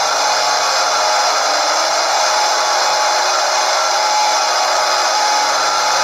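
Mock emergency alert alarm sound effect: a loud, steady hissing drone with several steady tones mixed into it, unchanging throughout.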